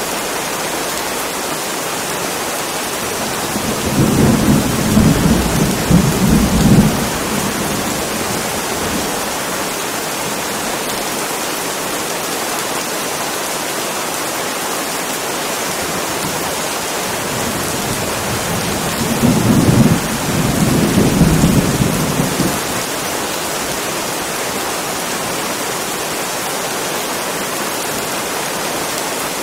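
Steady heavy rain with thunder rumbling twice, about four seconds in and again around twenty seconds in, each roll lasting about three seconds.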